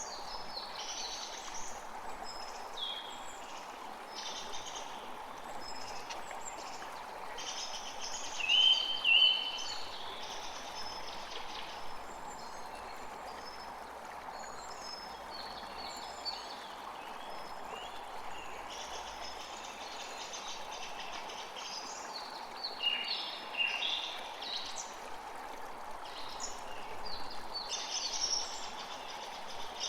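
Several birds chirping and calling over a steady background hiss. Two louder calls come about nine seconds in, and another short burst of calls comes a little past two-thirds of the way through.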